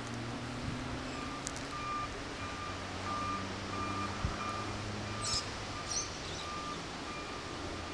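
A vehicle's reversing alarm beeping evenly, about three beeps every two seconds, starting about a second in, over the low steady drone of an engine.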